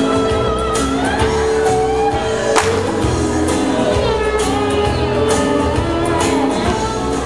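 Country music played by a live band with a singer, with a steady drum beat and held notes.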